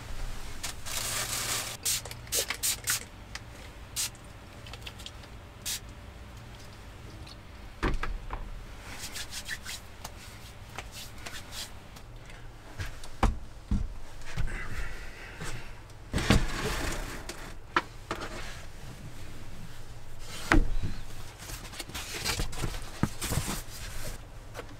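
Handling noises in a small wooden room: plastic-bag rustling, knocks and scrapes of things set on and moved against wood, and near the end a folding foam sleeping mat being opened out. A low steady hum runs underneath.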